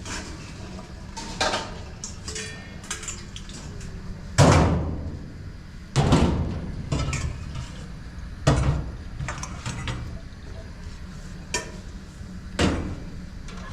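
Several separate knocks and clatters of household objects, spaced a second or more apart. Each trails off briefly, and the loudest comes about four seconds in. A low steady hum runs underneath.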